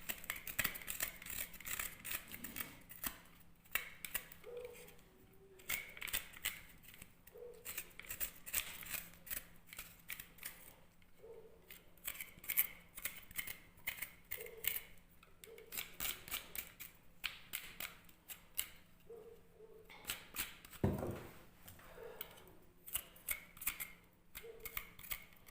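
Knife scraping the skin off a ginger root in short, irregular strokes, with one dull knock late on.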